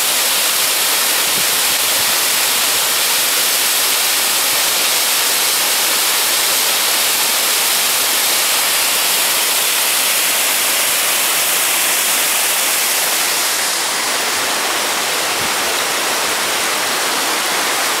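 Steady rushing of the Huk waterfall, about 15 metres high, falling into its rock pool, with a slight drop in level about three-quarters of the way through.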